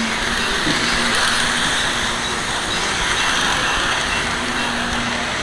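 Lionel model trains running on the layout's track: a steady mechanical whir and rattle of wheels and motors, swelling a little about a second in.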